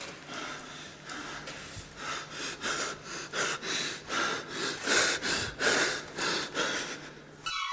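A man's heavy, rapid panting. The breaths come quicker and louder to about three a second toward the middle, then ease off and stop near the end. A faint low hum runs underneath.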